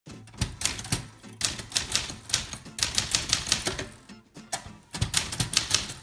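1931 Royal 10 manual typewriter being typed on: quick runs of sharp typebar strikes against the platen, broken by short pauses.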